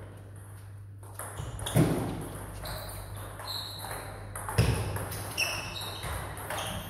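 Table tennis being played in a hall: ping-pong ball hits, with two louder sharp knocks about two and four and a half seconds in and several short high squeaks.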